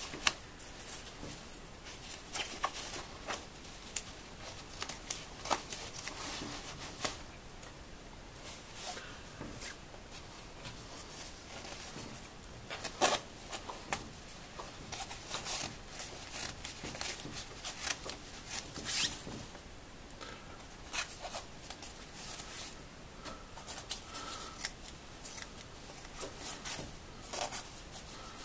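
Scissors cutting slowly through a quilted nylon coat and its padding: irregular sharp snips, sometimes in quick little runs, spread through the whole stretch.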